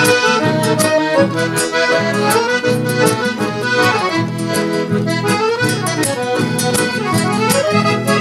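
Accordion-led gaúcho band music, played as an instrumental passage between sung verses. The accordion carries the melody over a bass line and a steady beat with crisp percussion strokes.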